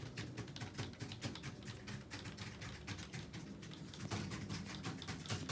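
Rapid, faint clicking of keys on a computer keyboard as someone types steadily.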